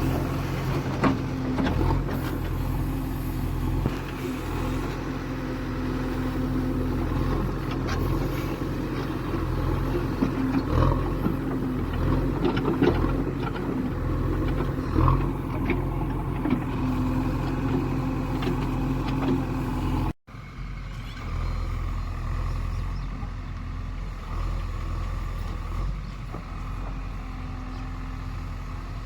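Heavy diesel engine running steadily, with scattered clanks and knocks. The sound drops out for an instant about twenty seconds in, then the engine sound goes on, a little quieter.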